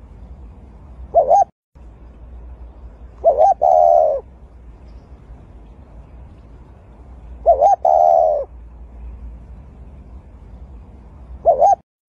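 Spotted dove cooing in repeated phrases about every four seconds: a short coo, in the middle phrases followed at once by a longer, wavering coo.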